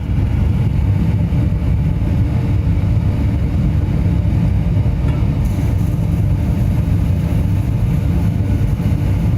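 Air blower feeding a pit furnace for melting aluminium, running with a steady low rumble.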